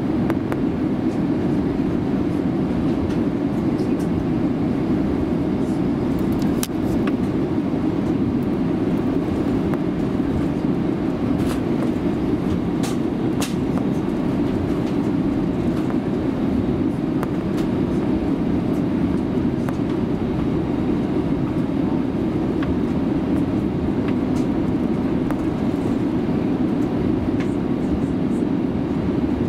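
Cabin noise of an Airbus A350-941 taxiing: the steady rumble of its Rolls-Royce Trent XWB-84 engines at taxi power and the aircraft rolling on the taxiway. A few faint clicks come about seven seconds in and again a little past the middle.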